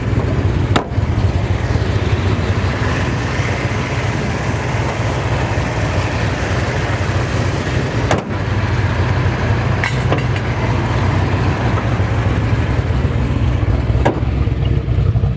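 Built 383 stroker small-block Chevy V8 with headers and a stainless exhaust, idling steadily with a lumpy, uneven idle.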